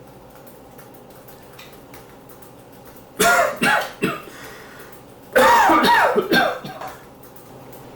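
A person coughing loudly in two fits: three quick coughs about three seconds in, then a longer, harsher run of voiced, hacking coughs whose pitch swoops up and down.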